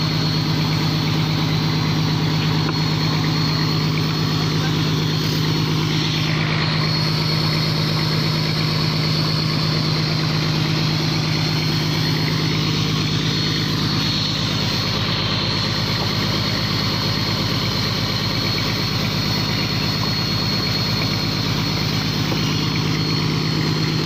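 Fishing boat's engine running steadily: an even low hum with a faint high whine above it, unchanging throughout.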